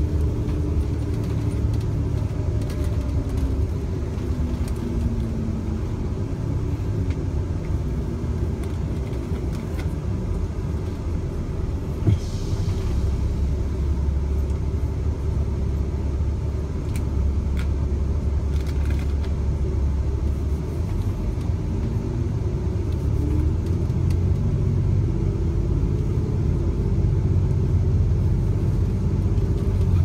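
Interior rumble of a moving city bus: steady low engine and road noise heard from inside the cabin, with a single knock about twelve seconds in.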